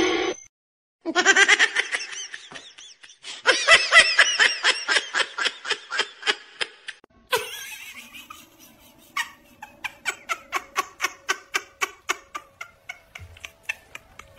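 A person laughing hard in quick, rhythmic bursts for several seconds; after a cut, a second, thinner run of short regular laughing pulses, about three a second.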